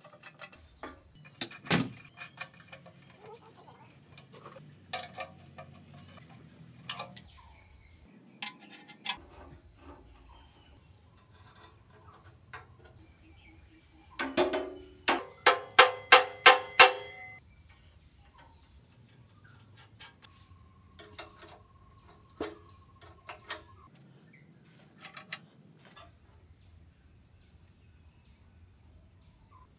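Metal bicycle parts being worked by hand: scattered clicks and knocks, with a quick run of about eight loud, ringing metal taps about halfway through.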